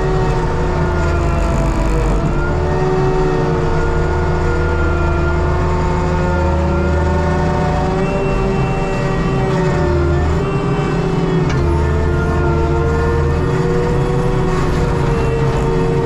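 ASV RT120 compact track loader running hard with its Fecon forestry mulcher head spinning: a loud, steady engine-and-hydraulic drone with whining tones that drift slightly up and down in pitch as the drum takes load.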